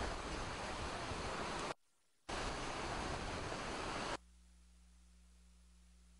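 Hurricane-force wind on the microphone: a dense, steady rush of noise, broken by a short dropout about two seconds in. It cuts off suddenly a little past four seconds, leaving only a faint low hum.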